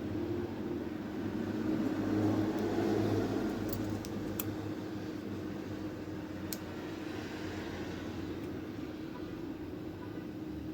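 Steady low hum of room or fan noise, with a few light, sharp clicks of a metal shim being worked against a lock cylinder.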